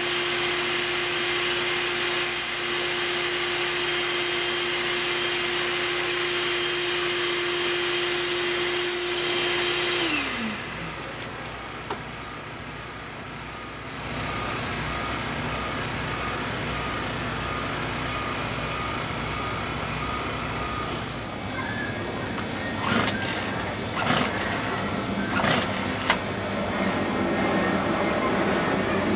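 A vacuum motor running with a steady whine, switched off about ten seconds in, its pitch falling as it winds down. A steady low machine noise follows, with a few knocks near the end.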